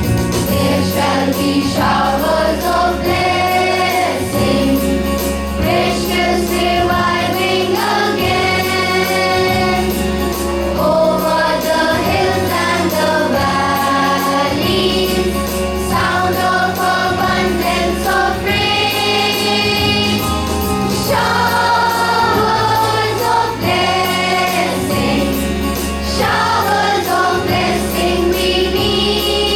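School choir singing a morning prayer hymn, voices together over a steady instrumental accompaniment.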